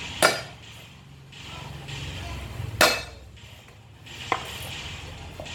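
A cleaver comes down hard on garlic cloves on a wooden cutting board: three heavy blows at uneven spacing, the first two with a short ringing tail.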